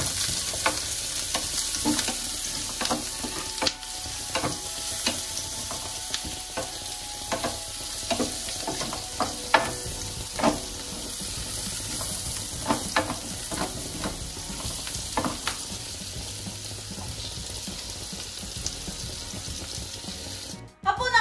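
Chopped vegetables frying in butter in a non-stick grill pan, a steady sizzle, while a wooden spatula stirs them with irregular scrapes and taps against the pan. The sizzle cuts off suddenly just before the end.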